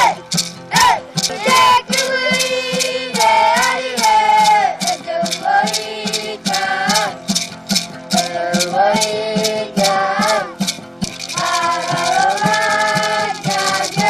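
Children singing a song together to a steady beat of a shaken gourd maraca, about two to three shakes a second, with a strummed acoustic guitar underneath.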